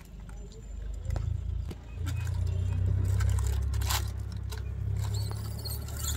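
Steady low rumble of wind buffeting the microphone, building about two seconds in, with a crinkle of a plastic biscuit packet being handled about four seconds in.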